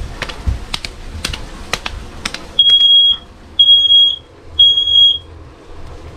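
Smoke alarm sounding three loud, high-pitched beeps about a second apart, each about half a second long, set off by cooking. A few light clicks and knocks come before the beeps.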